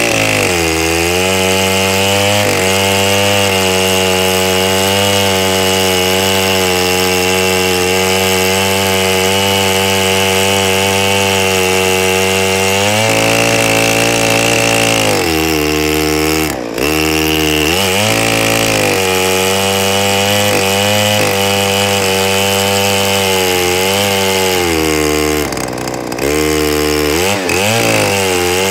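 Neotec 8105 chainsaw, mounted in a chainsaw mill, running at full throttle while ripping lengthwise through a log. The engine note is loud and steady, dipping in pitch briefly a few times as the cut loads it, around halfway and again near the end.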